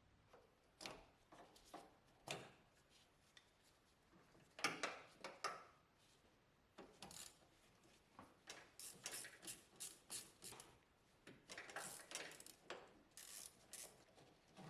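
Irregular clicks, taps and clatters of hand tools and parts being handled, in quick runs with short pauses, loudest about four to five seconds in.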